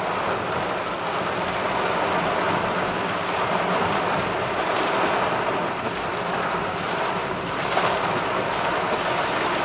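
Heavy rain on a moving car's roof and windscreen, heard from inside the cabin: a steady, even hiss.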